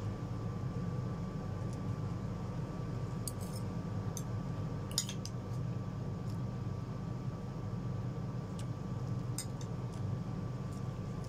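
Metal fork and spoon clinking against a ceramic plate of noodles a few times, the loudest clink about five seconds in, over a steady low hum.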